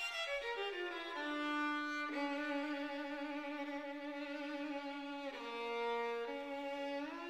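Music: a single violin melody stepping quickly down into long held notes with vibrato, dropping to a lower note late on and rising again near the end.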